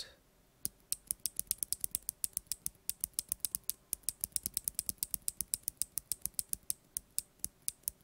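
A loose Kailh BOX Navy clicky switch fitted with a silicone-dampened BOX Mute Jade top housing, pressed rapidly by hand, clicking about six times a second. The dampened housing mutes the switch only slightly, and the click bar's click is still plainly audible.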